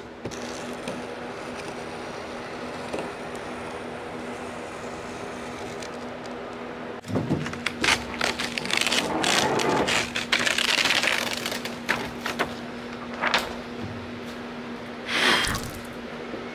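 Paper template being lifted and pulled off a car hood: irregular crinkling and scraping with sharp crackles, starting suddenly about seven seconds in. Before that, a steady background hiss with a low hum.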